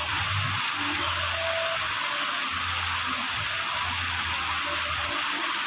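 Steady rushing of water at a water-park pool, an even hiss with a low rumble that comes and goes.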